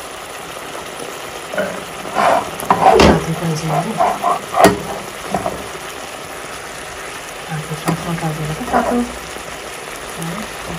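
Pork pieces sizzling in a pan of tomato and spice gravy while being stirred, the spoon scraping and knocking against the pan in two bouts, about two to five seconds in and again around eight to nine seconds.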